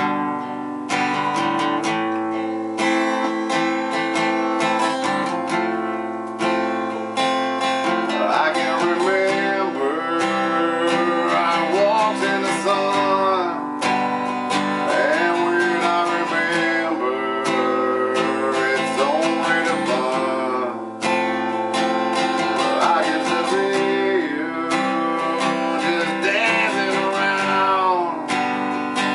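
Acoustic guitar strummed steadily, with a man singing along from about eight seconds in.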